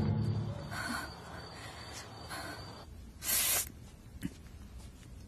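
Soundtrack music fading out, then a quiet room with soft breaths and a short, sharp hissing intake of breath a little after three seconds in, as a wound is being dressed.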